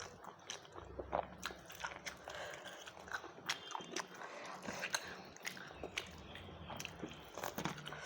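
A person chewing and eating a rice meal close to the microphone, with many short, irregular mouth clicks and smacks.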